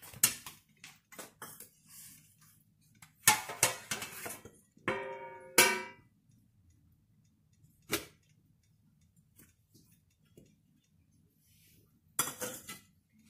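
Stainless steel plates and cookware knocking and clattering as they are handled, with one ringing clang about five seconds in and a short run of knocks near the end.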